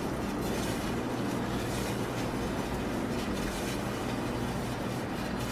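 Electric deli meat slicer running with a steady motor hum while a roast is pushed back and forth across its spinning blade, with a few faint swishes as slices are cut.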